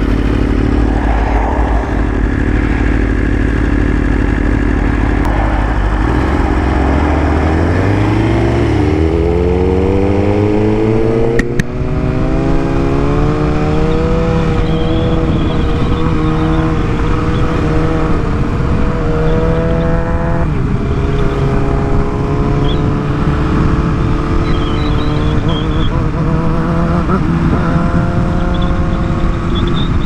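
BMW S1000RR's inline-four engine under way, pulling hard with its note rising steadily for several seconds, then a brief break about eleven seconds in and a steadier, slowly climbing note with another step about twenty seconds in.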